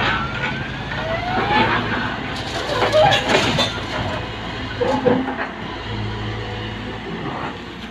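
Excavator's diesel engine running steadily under load, with a rising whine in the first two seconds and a burst of clattering about three seconds in.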